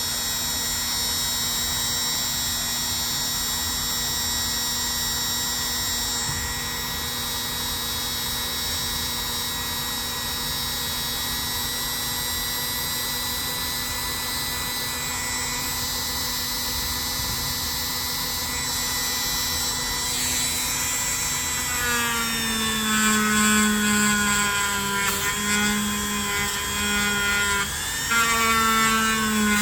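Small electric polishing tool with a polishing pad running steadily with a motor whine. About 22 seconds in its pitch drops slightly and it grows louder and uneven, working on the knife.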